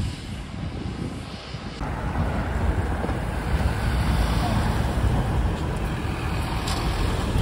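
Road traffic close by, louder from about two seconds in: a van and then a black London taxi drive past, engine and tyre noise.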